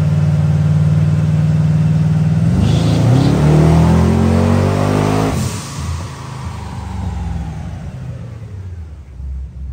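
Turbocharged Chevelle's engine running on a chassis dyno, driving through a rebuilt 4L80E automatic: it holds steady revs, then about two and a half seconds in goes into a full pull with the pitch rising for about three seconds, cuts off sharply, and winds down as the rollers coast.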